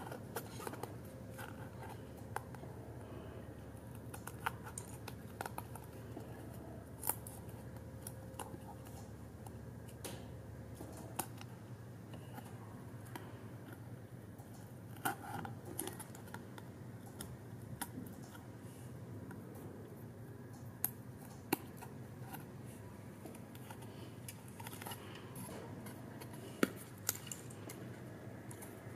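Thin printed cardboard being handled and folded: scattered sharp clicks, taps and crinkles as die-cut card tabs are bent and pushed through slots with a slim metal tool.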